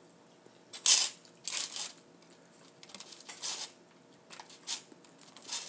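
Close-up eating and food-handling sounds: a series of about seven short, crisp crackling noises, the loudest about a second in.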